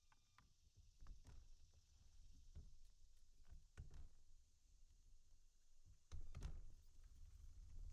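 Near silence with a dozen or so faint, irregular knocks and thumps over a low rumble, a little louder near the end.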